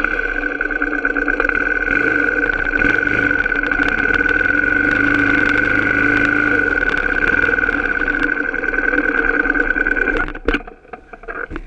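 An off-road vehicle engine runs at a steady speed close to the microphone, its pitch almost constant, then cuts off suddenly about ten seconds in.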